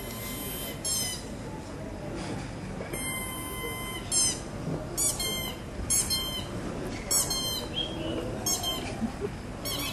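High-pitched, bird-like squeaky calls: short gliding chirps repeated roughly once a second, then a rapid warbling trill near the end, over a low murmur of audience noise.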